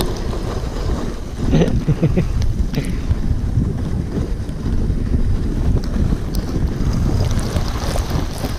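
Wind buffeting the microphone as a sledge slides fast down a packed-snow toboggan run, with the rush and scrape of the runners over the snow. It gets louder and rougher for a moment about one and a half seconds in.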